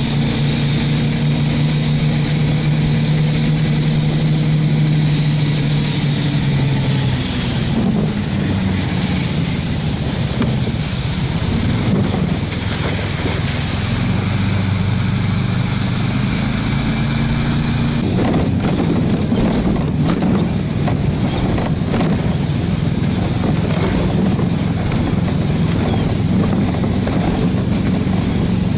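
Engine of a Barbos motorized snow tow (motor-dog) running steadily as it pulls a sled over snow, over a steady hiss. Its pitch shifts about seven seconds in and again around eighteen seconds.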